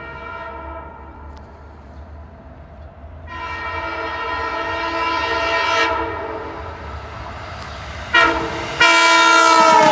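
Long Island Rail Road diesel push-pull train sounding its horn in the grade-crossing pattern as it approaches: a long blast fading out, a louder long blast about three seconds in, then a short blast and a final long one near the end. The pitch drops at the very end as the train draws level.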